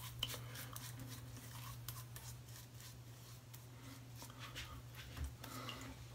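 Faint rubbing and light scratchy crackle of fingertips working shaving lather into mustache whiskers, over a steady low hum.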